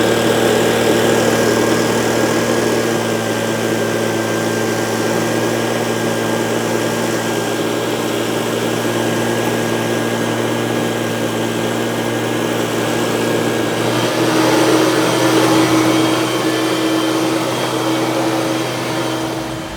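Leaf blower running steadily at full throttle, a constant high engine tone over a rush of air as it blows dust and chaff off a combine. It grows a little louder about fourteen seconds in.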